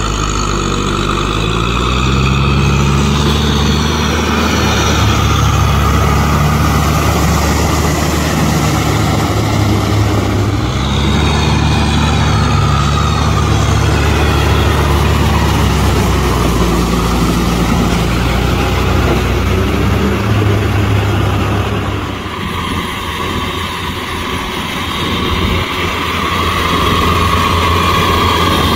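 Kubota M6040SU tractor's four-cylinder diesel engine running steadily under load while pulling a rotavator through wet mud, its pitch rising twice in the first half and the level dropping briefly near the end. Tyres and tiller blades churning through the mud are heard with it.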